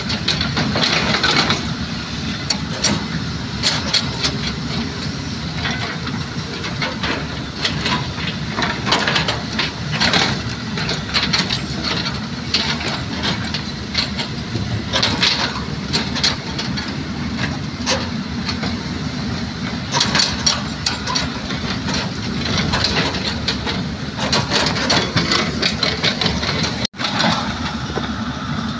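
Several LiuGong hydraulic excavators running steadily while digging, with frequent clanks and knocks from buckets working stony soil. The sound cuts out for an instant near the end.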